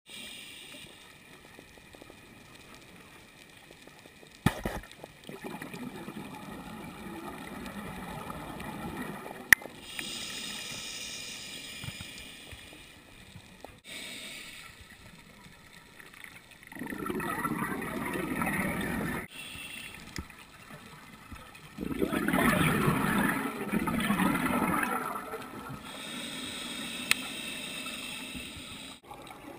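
Scuba breathing heard underwater through a regulator: bubbling, gurgling exhalations, loudest in two long bursts past the middle, with a fainter hiss between breaths.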